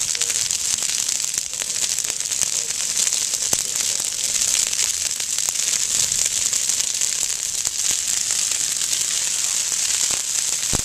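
Grass and brush fire crackling and hissing: a steady, dense crackle of many small snaps, with a few louder pops standing out.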